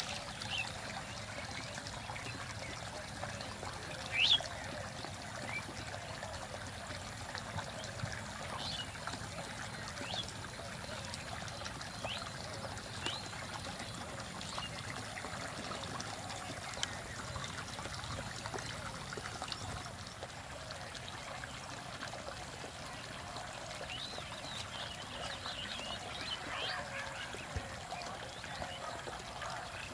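Outdoor ambience: short bird chirps scattered over a steady background hiss, with one louder rising call about four seconds in.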